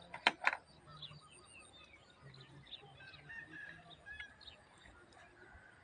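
Birds chirping, with two loud sharp sounds about half a second in.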